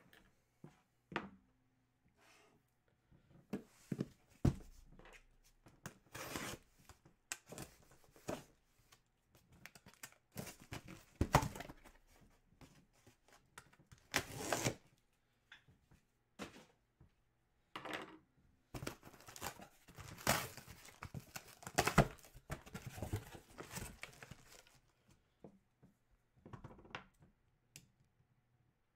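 Cardboard shipping box being opened by hand, with irregular bursts of scraping and rustling as the top is cut and the flaps are pulled up.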